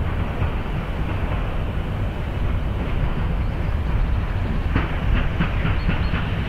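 Metre-gauge steam locomotive rumbling slowly into a station. Near the end comes a quick run of short sharp knocks.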